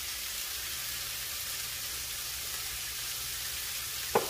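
Sliced peppers, onion and tomato sizzling steadily in hot oil in a frying pan, with a single sharp knock near the end.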